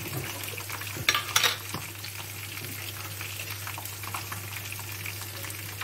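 Sliced onions sizzling in oil in a clay tajine, with a steady fine crackle and a couple of louder pops about a second in.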